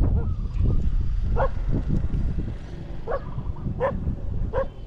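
A dog barking, four short barks spread over the last few seconds, over a steady low rumble.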